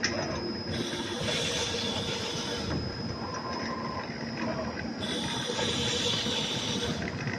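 Protective-film roll cutting machine running: a steady mechanical noise with a faint high whine, and two stretches of louder hissing, one starting about a second in and another about five seconds in.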